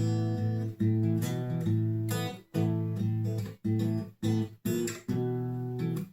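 Washburn WD11SCE acoustic-electric guitar strummed in chords. Each chord rings, and several are cut off abruptly, leaving short gaps between them.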